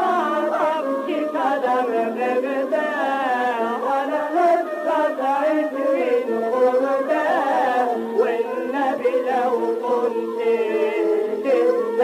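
Egyptian Arabic song: a solo voice sings wavering, ornamented melodic lines over steady instrumental accompaniment. The recording sounds thin, with no low bass and little top end.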